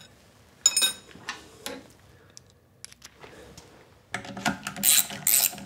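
A few light metallic clinks of tools, then, from about four seconds in, a 1/4-inch drive ratchet clicking in quick strokes, about three a second, running a bolt up into the umbrella tool changer plate.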